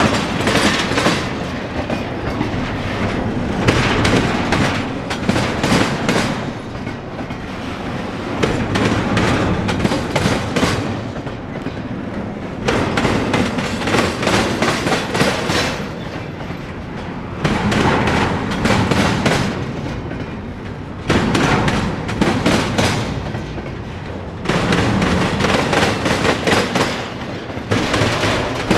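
Norfolk Southern intermodal freight train rolling past, its wheels clicking over the rail joints. The loudness swells and drops every few seconds as the cars go by.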